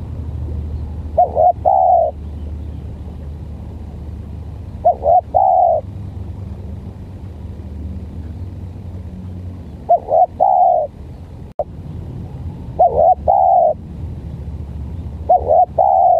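Spotted dove cooing: five short phrases a few seconds apart, each a quick stammering note followed by a longer coo. A steady low rumble runs beneath, and there is one sharp click near the end.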